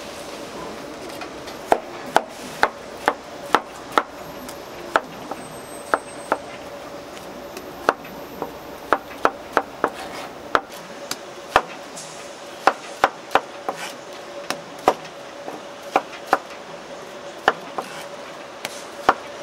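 Knife chopping fresh fruit on a cutting board: sharp knocks at an uneven pace, one or two a second, over a steady background hum.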